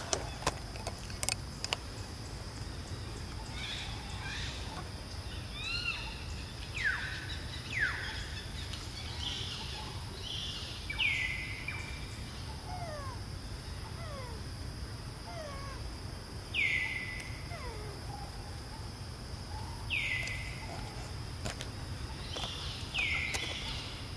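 Wild birds calling: a series of short, sharply falling whistled calls every few seconds, with fainter lower falling notes between them, over a steady hum of background noise. A few sharp clicks near the start.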